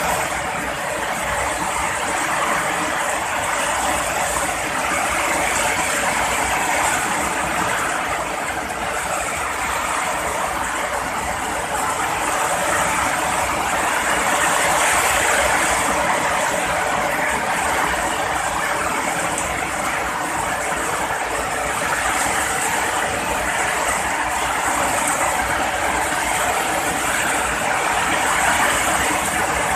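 Heavy rain falling steadily, a dense even hiss with no thunder claps.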